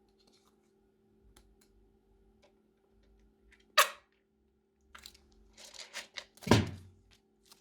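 Slime and plastic piping bags being handled: scattered small clicks, a sharp crackle about four seconds in, then a run of crackles ending in a loud squelch that slides down in pitch.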